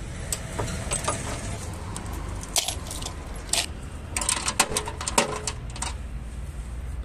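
Steel spanners and socket tools clinking and rattling as they are handled and set down on a concrete floor: a run of sharp, irregular metallic clinks, busiest in the middle, over a steady low hum.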